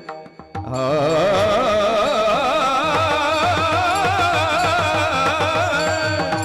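Varkari kirtan chal: devotional singing with wavering, ornamented melody over steady mridang drum strokes. A brief break at the start, then the voices and drum come back in under a second in.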